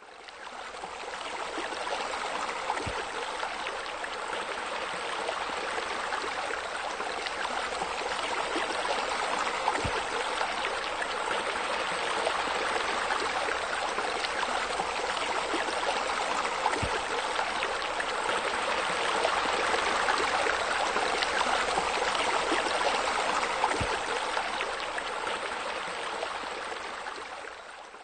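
Steady rush of water from a rock waterfall spilling into a pool. It fades in at the start and out at the end, with a faint low knock about every seven seconds.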